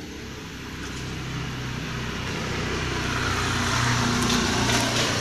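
A motor vehicle's engine hum rising steadily in loudness as it approaches, with a few faint clicks near the end.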